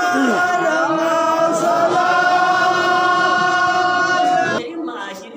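A man chanting in a drawn-out melodic voice, holding long notes, which break off about four and a half seconds in.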